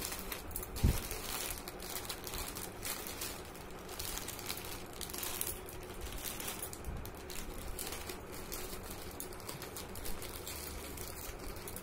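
A courier parcel being handled, its packaging rustling and crinkling with scattered small clicks, and one sharp knock about a second in.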